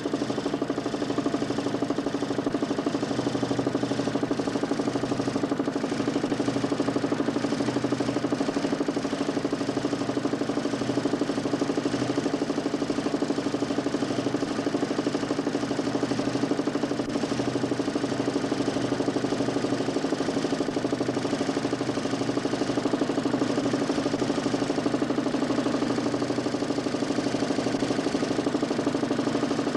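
DC motor spinning a 40 cm plywood Nipkow disc in a homemade mechanical television, a steady hum with a fast, even pulsing.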